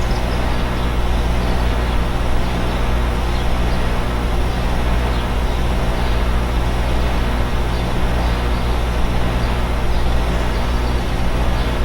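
Outdoor condenser units of central air conditioners running steadily: a constant low hum under an even rushing fan noise, with no change in level.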